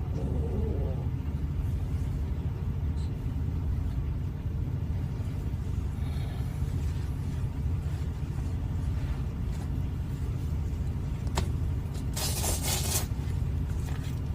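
Steady low rumble, with a sharp click about eleven seconds in and a short burst of hiss about a second later.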